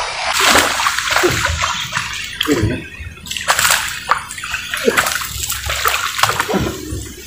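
A hooked snakehead thrashing at the surface of shallow swamp water as it is reeled in, making irregular splashes in quick surges.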